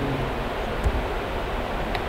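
Steady background hiss of room noise, with a faint click about a second in and another near the end.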